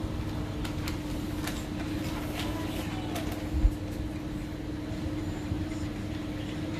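Steady low hum and rumble of indoor room noise with one constant tone, a few light clicks in the first half, and a single dull low thump a little past halfway.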